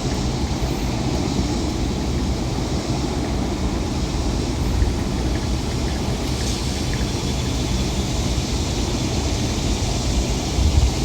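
Wind blowing across the microphone: a steady low rumble under a faint hiss.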